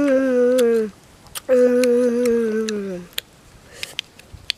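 A boy humming a long, contented "mmm" twice while eating, each hum sliding down in pitch, followed by soft lip-smacking and chewing clicks.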